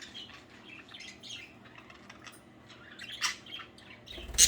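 Pet budgerigars chirping and chattering in short high calls, with a louder, sharp squawk just before the end.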